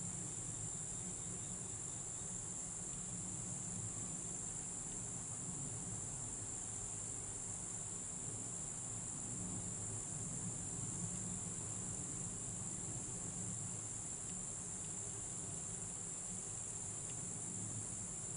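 Steady chorus of insects singing, a continuous high-pitched trill that never breaks, with a low steady rumble underneath.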